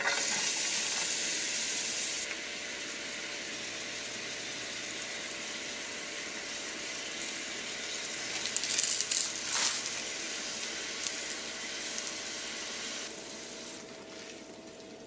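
Food sizzling in a frying pan, loudest in the first couple of seconds, flaring up a few times around the middle and quieter near the end.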